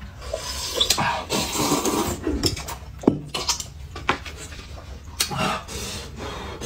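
Loud slurping and chewing of noodles eaten with chopsticks from a paper cup, in several bouts, with a sharp click about three seconds in.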